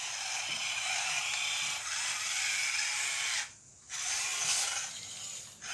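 Electric motor and plastic gears of a remote-control toy excavator whirring as it is driven, stopping for about half a second about three and a half seconds in, then running again.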